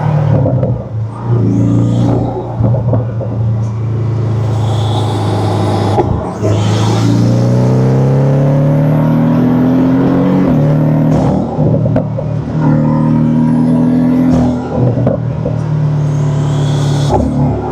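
Porsche 718 Cayman's turbocharged flat-four engine under way, heard with its intake and turbo noise through an aftermarket turbo inlet pipe. The engine note climbs in pitch under acceleration and falls back sharply several times. A faint high turbo whistle rises with the revs.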